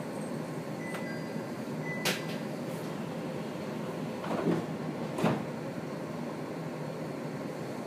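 Steady hum inside the cabin of a 701-series electric train, with a sharp click about two seconds in and a couple of knocks around four to five seconds in.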